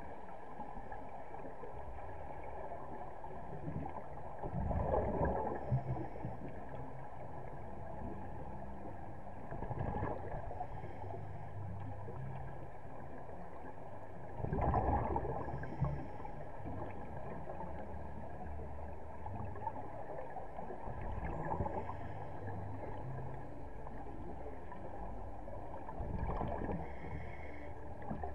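Scuba exhalation bubbles heard underwater: a rush of bubbles from a diver's regulator about every five to six seconds, five times, over a steady low underwater rumble.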